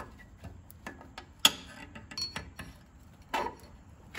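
Scattered sharp metallic clicks and clinks as long needle-nose pliers work a spring clip onto a Ram 1500's rear parking brake shoes; the loudest click comes about a second and a half in.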